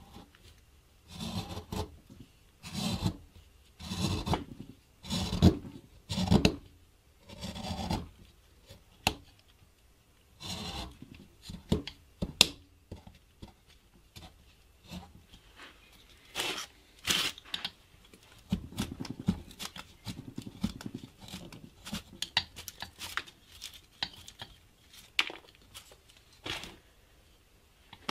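Hand carving gouge pushed through a wooden block: a series of short scraping cuts, about one a second at first, then sparser cuts with sharp clicks as chips break away.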